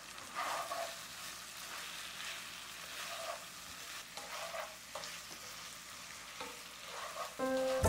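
Chicken sizzling as it fries in a pan, with a utensil stirring and scraping against the pan every second or so.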